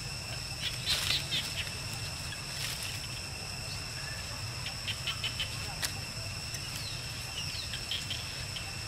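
Dry leaf litter crackling and rustling in short bunches as a long-tailed macaque walks and picks through it, over a steady high whine.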